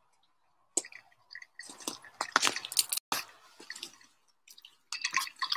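Close handling noise right at the microphone: cloth rustling and brushing with scattered sharp clicks, starting about a second in and coming in several spurts.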